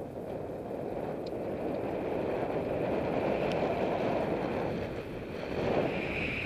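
Steady rushing of wind on the microphone, growing louder, as a mountain bike rolls along a gravel road, its tyres crunching the surface.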